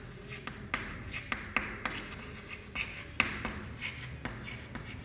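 Chalk writing on a chalkboard: irregular sharp taps and short scratching strokes as letters are written.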